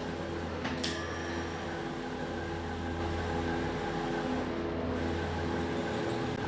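Steady hum of electrical machinery, with a few faint tones pulsing on and off and a single sharp click about a second in.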